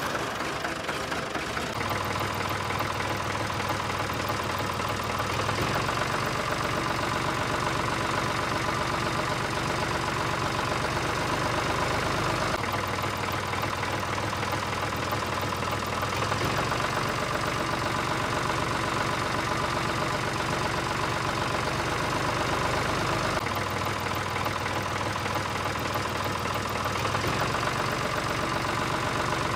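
Diesel tractor engine idling with a steady low chug. The same stretch of sound repeats about every eleven seconds, as a looped engine recording does.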